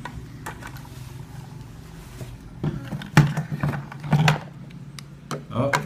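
A plastic toy fire truck being handled: a few scattered knocks and clicks, two louder ones in the middle and a quick cluster near the end, over a steady low hum.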